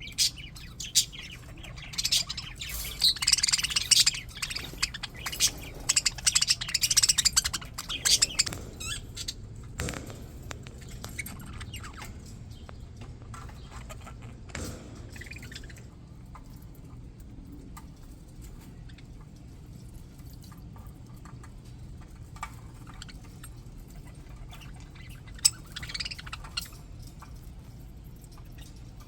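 A flock of English budgies chattering and chirping, densely for the first several seconds and then sparsely, with another short burst of chirps near the end. A steady low hum runs underneath.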